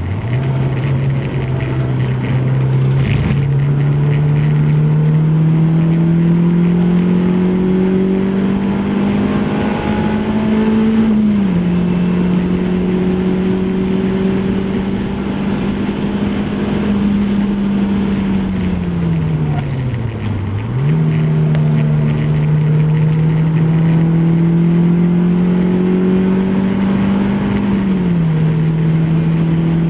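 MG F Trophy 160's 1.8-litre Rover K-series VVC four-cylinder engine accelerating hard on track, revs climbing steadily through the gears with upshifts about eleven seconds in and near the end. About twenty seconds in the revs fall away sharply, then pick up and climb again, over steady wind and tyre noise.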